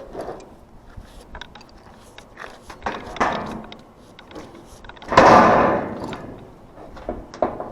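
Work and handling noises on an evaporative cooler: scattered clicks and knocks, with a louder scrape about three seconds in and a loud scraping rush lasting about a second just after five seconds.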